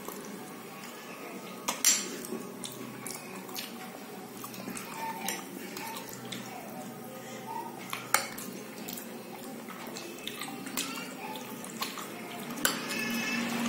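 A metal spoon clinking and scraping against a glass bowl while scooping kheer, with scattered sharp clinks, the loudest about two seconds in.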